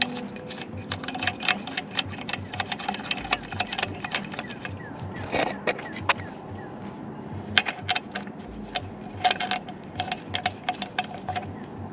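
Irregular metallic clicking and clinking of hand tools working on the wheel hardware of a zero-turn mower, some clicks coming in quick runs.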